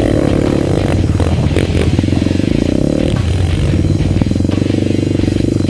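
Sport ATV engine running hard close under the microphone as the quad is ridden, its pitch rising and falling with the throttle, then holding a steadier note about halfway through.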